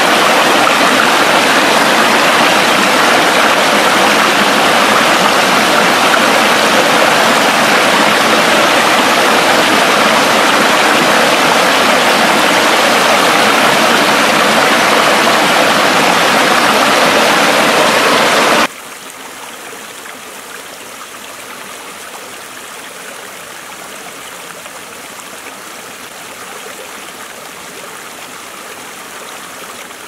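Small waterfall spilling over rock ledges, a loud steady rush of water. About two-thirds of the way through it drops suddenly to a much quieter, thinner rush of water running over rock.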